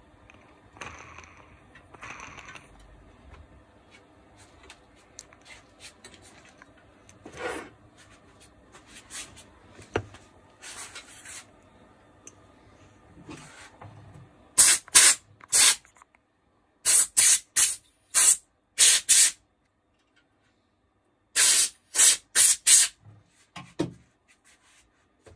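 Quick hissing bursts from an aerosol spray can: three runs of four to six short squirts each in the second half, after some faint handling of small metal parts.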